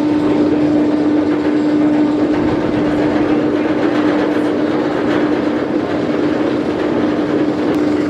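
Steel roller coaster and its ride machinery: a steady mid-pitched hum over a continuous rumbling rush of noise.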